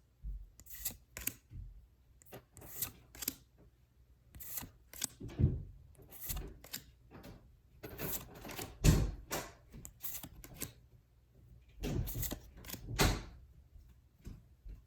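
Pokémon trading cards handled one at a time: a string of short, irregular flicks and swishes as each card is slid off the stack.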